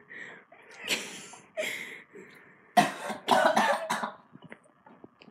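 A person coughing in several short bursts, the loudest and longest fit about three seconds in, set off by sour Warheads candy in the mouth.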